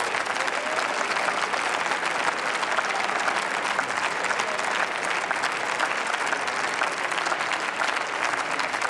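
Steady applause from many members of parliament clapping in their seats.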